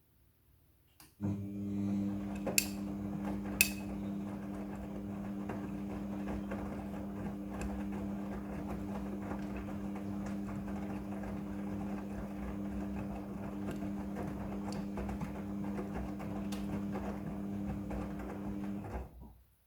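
Midea front-loading washing machine's drum motor starting up and turning the drum for one stretch of the wash cycle: a steady hum with the swish of tumbling laundry, two sharp clicks soon after it starts, and an abrupt stop just before the end.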